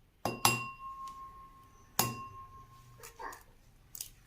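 An egg tapped against the rim of a mixing bowl to crack it: two quick taps, then a third about two seconds in, each leaving the bowl ringing with a clear tone, followed by a few softer clicks.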